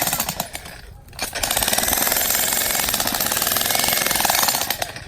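A machine hammering at a rapid, even rate. It drops off briefly about a second in, runs again, and stops near the end.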